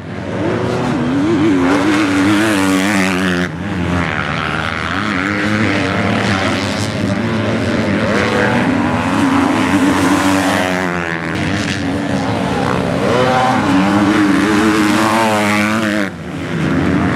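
MX2-class motocross bikes racing close together, their engines revving up and dropping back again and again, with a short dip in loudness near the end.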